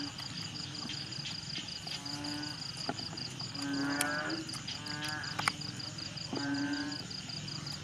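A dog whining in short, repeated pitched cries, about one every second and a half.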